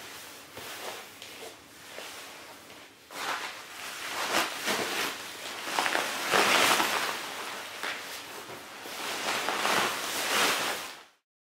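Rustling of sleeping-bag fabric as a person climbs into an inner liner, a down sleeping bag and a bivvy bag. It is light at first and grows louder and busier from about three seconds in as he slides down into the bag, then cuts off suddenly near the end.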